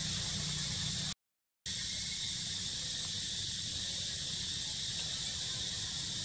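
Steady high-pitched drone of insects in the outdoor background. It breaks off for about half a second just after one second in, and a faint low hum sits under it before that break.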